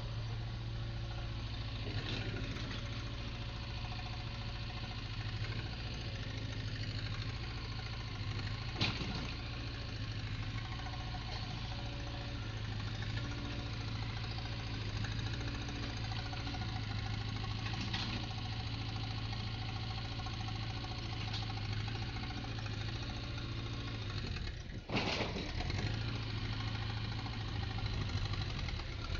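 A backhoe's diesel engine running steadily at idle during a pre-purchase test. A sharp knock sounds about nine seconds in, and a louder one comes after a brief dip about 25 seconds in.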